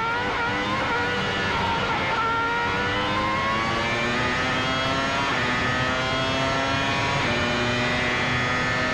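Formula One V10 engine heard onboard, accelerating and shifting up through the gears: a high, shrill note climbs in pitch and drops back at each upshift, three or four times.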